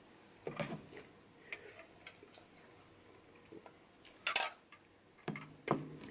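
Faint, scattered small clicks and taps from handling, then a sip of a drink about four seconds in and two short swallowing sounds near the end.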